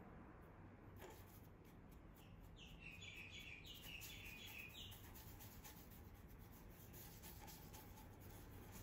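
Near silence: faint scratching of a paintbrush dabbing and stroking on a stretched canvas, with a run of about five short high chirps between about two and a half and five seconds in.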